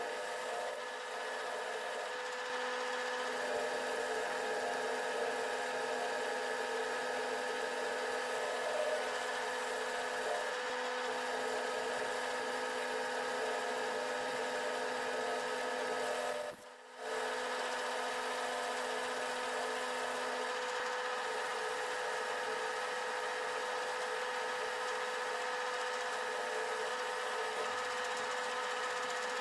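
Paulimot PM2500 benchtop metal lathe running, turning down the shaft of a mounting bolt: a steady motor and gear whine made of several held tones. The sound drops away briefly once, about two thirds of the way through.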